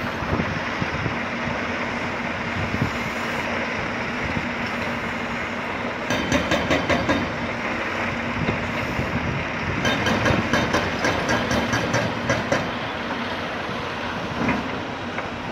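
Heavy diesel demolition machinery, a Volvo tracked excavator and a mobile rubble crusher, running with a steady hum. About six seconds in and again about ten seconds in comes rapid hammering at roughly six blows a second, which fits an excavator-mounted hydraulic breaker pounding concrete.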